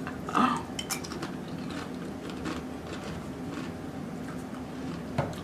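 Close-up crunching and chewing of a tortilla chip dipped in queso: a scatter of small, sharp, irregular crunches.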